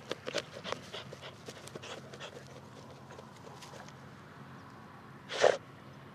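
Jack Russell terrier nosing in soil: a quick run of short scuffs and sniffs over the first couple of seconds, then one loud, short snort about five and a half seconds in.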